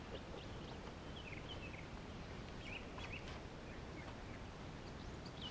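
Faint, scattered short bird chirps over a steady low background hiss.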